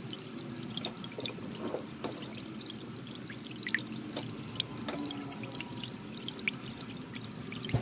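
Soft ambient background music with a low steady tone, over scattered light, sharp clicks.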